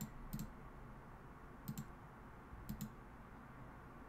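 Several sharp double clicks from a computer's mouse buttons or keys at uneven intervals, over faint room hiss.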